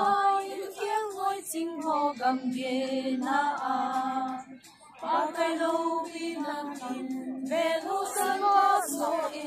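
Women singing a song unaccompanied, one clear female voice leading with long held notes, with a short pause for breath about halfway through.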